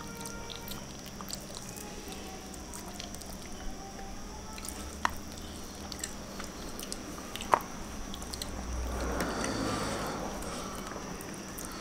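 Close-up eating with the hands: chewing, and fingers picking through fish in sambal and rice on a tray. There are two sharp clicks a couple of seconds apart in the middle, and a rustling swell near the end.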